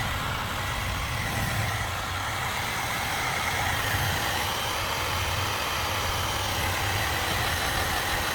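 Electric hot-air blower running steadily at a constant speed, a fan hum with rushing air, used to dry freshly sprayed caliper primer.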